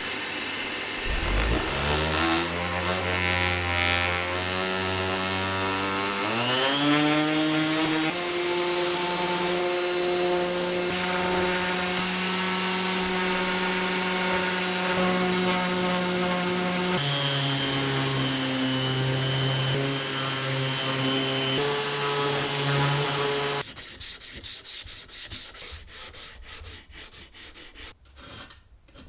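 Bosch random orbital sander, with a vacuum hose taped to its dust port, spinning up with a slowly rising whine and running steadily on wood. Its pitch drops in a step about two-thirds of the way through. Near the end the motor cuts off, and quick scratchy rubbing strokes of sanding on wood follow.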